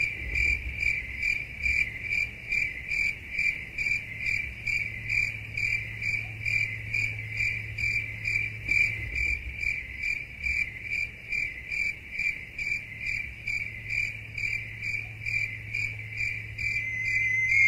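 A cricket chirping in an even rhythm, a little over two chirps a second, over a faint low steady hum.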